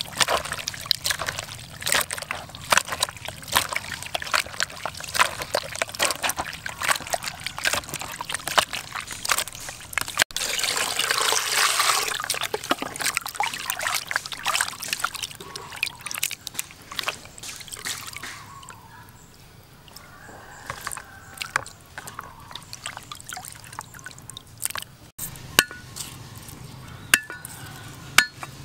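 Raw pork large intestines being squeezed and rubbed by hand with flour and water in a plastic basin to clean them, giving a run of wet squelching and sloshing. About ten seconds in there is a louder splashing stretch as water is added, and the sound then dies down. A few light knocks come near the end, as garlic cloves land on a wooden board.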